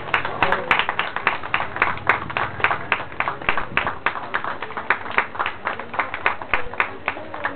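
Audience applause: scattered hand clapping from many spectators, several claps a second.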